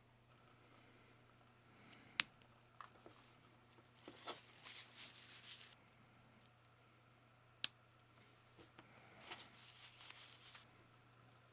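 Keyboard parts being handled during a custom keyboard build: two sharp clicks about five seconds apart, each followed a moment later by a second or two of scraping and rustling.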